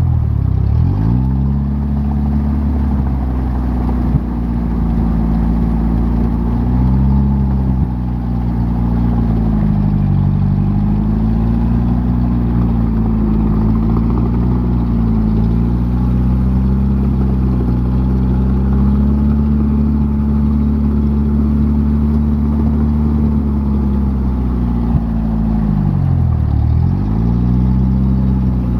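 Off-road vehicle engine running under load, its revs rising and falling several times. The revs drop sharply just after the start and again near the end.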